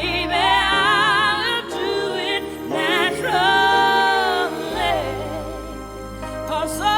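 A woman's solo pop-soul vocal singing wordless runs with heavy vibrato and long held notes, over a backing track whose deep bass comes in about two-thirds of the way through.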